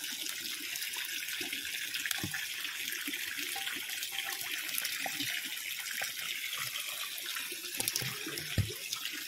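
Steady hiss of running water, with small irregular splashes and knocks as a hand stirs live chital fingerlings in a metal bowl of water.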